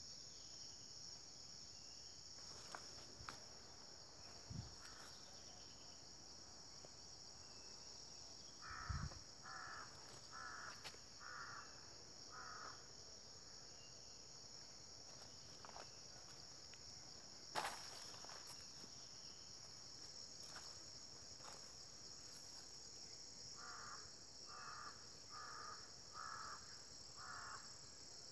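Faint, steady high-pitched insect chorus, with a bird giving two series of five evenly spaced calls, one series before the middle and one near the end. A few soft thumps and one sharp knock about two-thirds of the way through.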